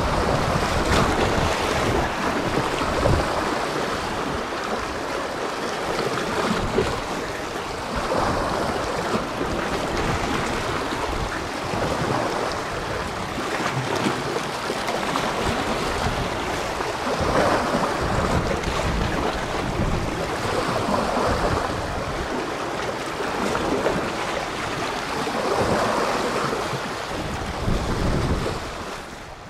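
Sea waves washing in, swelling every few seconds, with wind buffeting the microphone in uneven low gusts.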